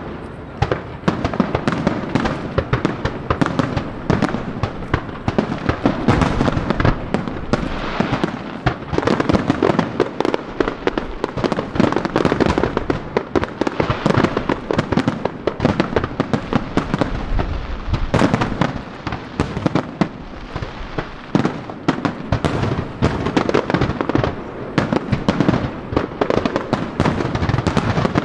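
Fireworks show: aerial shells bursting in a dense, unbroken barrage, rapid bangs overlapping one another with crackle between them.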